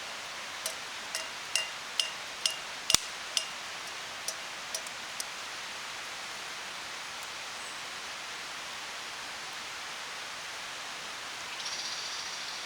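A run of about a dozen light clinks, roughly two a second, stopping about five seconds in, over a steady hiss.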